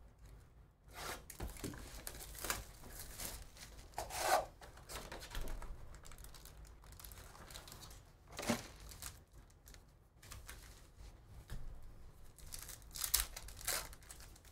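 A sealed trading-card hobby box being torn open and its foil-wrapped packs pulled out and handled: irregular tearing, rubbing and crinkling, with louder rips about four seconds in, about eight and a half seconds in, and near the end.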